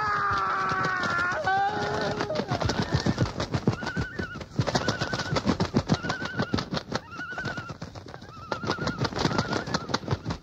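Spooky sound-effect recording of tapping at a window: a wavering sound of several pitches for the first two seconds, then rapid, continuous tapping with a short warbling call repeating about once a second.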